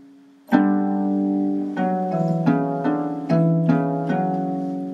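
Background music: a slow melody of plucked string notes, each left ringing. After a fading note, a loud new note comes in about half a second in, and further notes follow every few tenths of a second.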